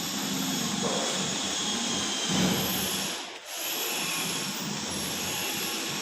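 A power tool motor running steadily, dropping off briefly about three seconds in.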